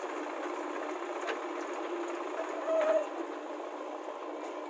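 Diesel engines of a JCB 3DX backhoe loader and a Swaraj tractor running steadily as the backhoe digs and lifts a bucket of soil. There are a couple of faint knocks and a short, louder whine near the middle.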